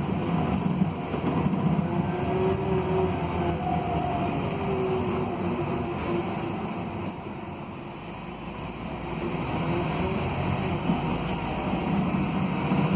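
Inside a Scania K280UB city bus under way: its Scania DC09 five-cylinder diesel and ZF Ecolife automatic gearbox running together with road and cabin noise. The noise eases a little past the middle and builds again near the end.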